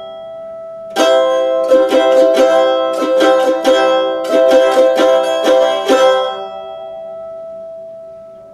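Mandolin strummed on an E minor chord. The strumming starts about a second in, with a run of even strums for about five seconds, then the chord is left to ring and fades away.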